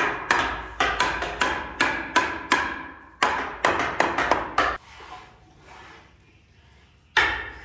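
Steel-headed hammer striking a wooden window frame in quick blows, about three a second, driving the frame's corner joint together. The blows stop for about two seconds past the middle and start again near the end.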